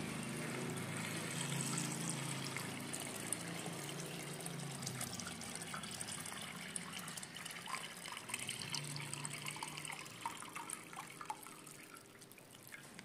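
Water pouring from a plastic container into a long rubber glove, filling it. The pour grows fainter and more broken toward the end.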